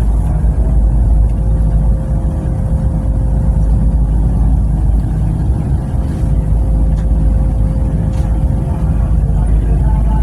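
Passenger train running, heard from inside the carriage: a steady low rumble with a constant hum.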